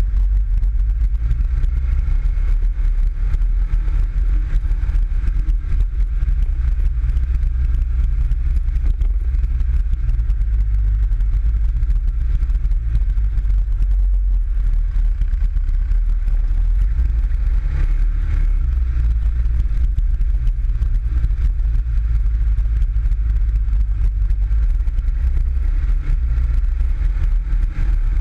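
PGO 500i off-road buggy's engine running as it drives up a rough trail, heard on board as a steady, loud low rumble.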